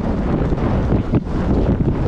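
Heavy wind buffeting on the microphone of a camera riding along on a bicycle during a race, with irregular knocks and rattles mixed in as the bike crosses rough ground.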